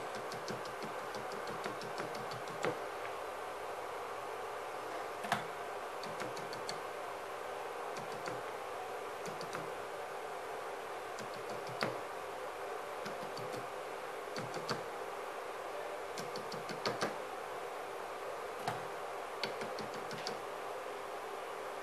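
A toothbrush scrubbing and tapping on a laptop motherboard, giving scattered light clicks, some in quick pairs, over a steady background hum.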